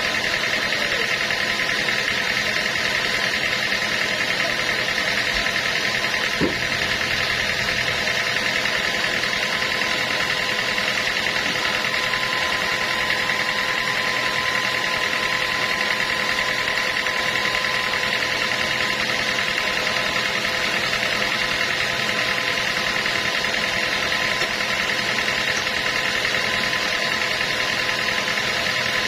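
Sawmill machinery running steadily, a constant mechanical hum with a steady whine, unchanging throughout; a single click about six seconds in.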